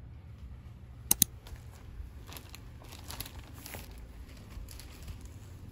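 Plastic courier mailer bag crinkling and rustling as it is handled and moved, with two sharp clicks about a second in.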